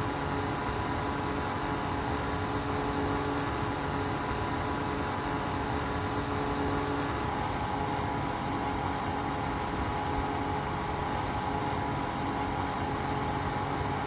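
Cheap electric space heater's fan motor running flat out on double its rated voltage, a steady hum and whir with several held tones, one of which fades about halfway through, and a few faint ticks. The motor is overheating and smells of burning, close to failing.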